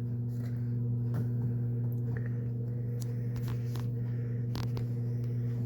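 Steady electrical hum with a few faint clicks and taps in the middle.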